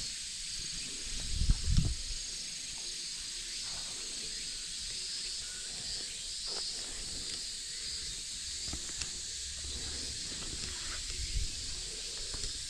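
Cicadas droning steadily in a continuous pulsing chorus. A couple of low thumps come about a second and a half in and again near the end, with a few faint clicks between them.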